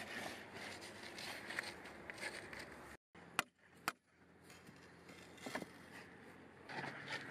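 A few seconds of outdoor handling and scraping noise, then two sharp metallic knocks about half a second apart, followed later by a smaller knock. The knocks come from a sledgehammer striking a steel pry bar set against a steel pile-head bracket under a timber floor beam.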